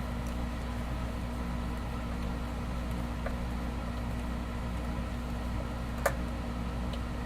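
Steady low hum in the background, with a few faint clicks, the sharpest about six seconds in, from a screw being turned by hand with a screwdriver into a pilot hole in a guitar pickguard.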